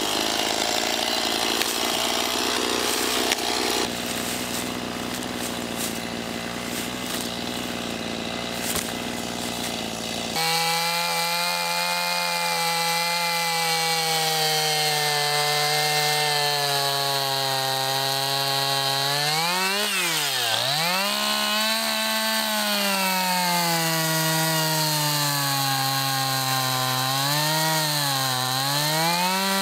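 Stihl chainsaw cutting through an oak log. About ten seconds in the sound changes abruptly. From there the engine's note sags and recovers as the chain bites into the wood, with one deep dip about two-thirds of the way through and smaller dips near the end.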